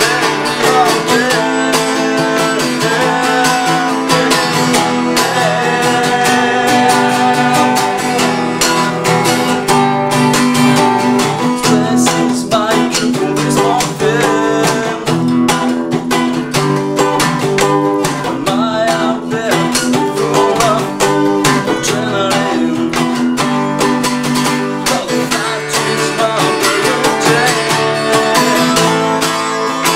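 Two acoustic guitars, one of them a resonator guitar, strummed and picked together in a continuous blues-style folk tune.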